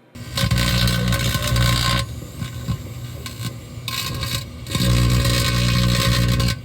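Microwave oven running with a loud, low buzzing hum that swells for the first two seconds and again over the last two, along with a crackling hiss of electrical arcing off the metallic suit inside.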